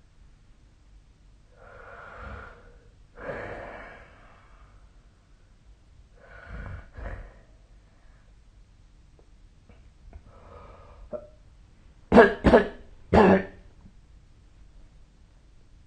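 A sleeping person's noisy breaths, then a quick burst of three coughs about twelve seconds in.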